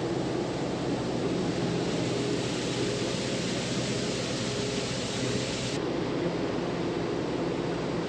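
Tractor engine running steadily under load, driving a grain bagger that is unloading grain from a semi trailer's hoppers, with a constant rush of machinery noise.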